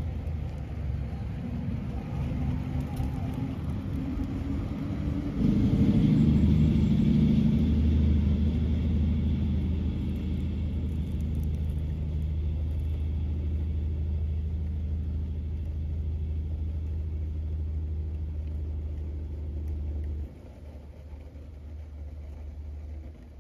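Axial Capra 1/10 RC rock crawler's Hobbywing Fusion SE brushless motor and geared drivetrain pulling at a slow crawl over rock, a low steady hum with a faint whine above it. It steps up louder about five seconds in and drops off sharply near the end.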